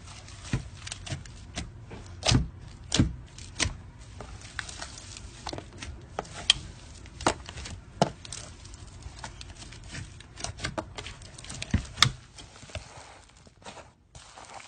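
Slime being squeezed and pressed by hand, making irregular sharp clicks and wet pops, with the loudest pops a few seconds apart and fewer near the end.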